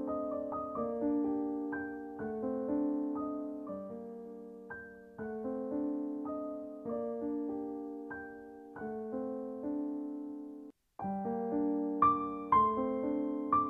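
Background piano music: a slow run of sustained piano notes. It cuts out for a moment near the end, then comes back with brighter, more sharply struck notes.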